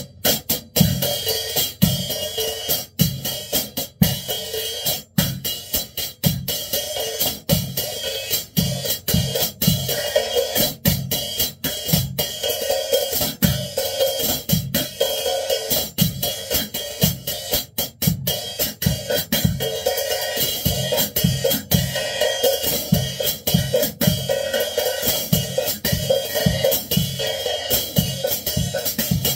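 Acoustic drum kit played with wooden sticks: a steady beat on snare and cymbals over regular bass-drum strokes, with the cymbals ringing throughout.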